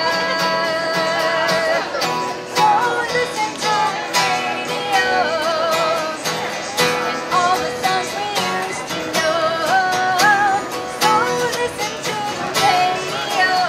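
A woman singing a melody with vibrato, accompanied by a strummed acoustic guitar, performed live.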